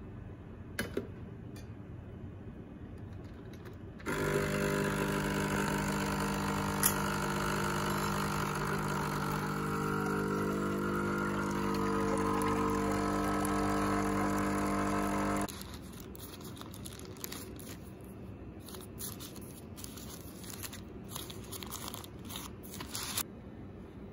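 Nescafé Dolce Gusto capsule coffee machine's pump running with a steady buzz for about eleven seconds as coffee pours into a stainless steel mug, then cutting off suddenly. Faint scattered clicks and rustles follow.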